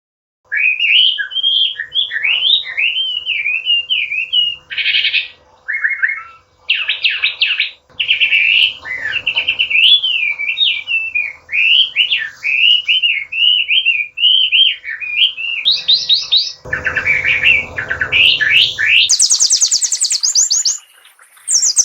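Chinese hwamei singing a long, varied song of rapidly rising and falling whistled phrases broken by short trills. In the last few seconds it moves into faster, higher-pitched trills.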